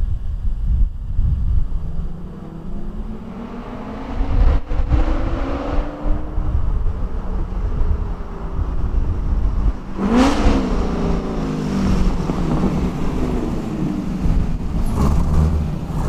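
LS-swapped E36 with a 5.3 LS V8 breathing through home-built equal-length, tri-Y style headers, accelerating toward the microphone and growing louder. Its pitch climbs and falls back several times. Wind rumbles on the microphone.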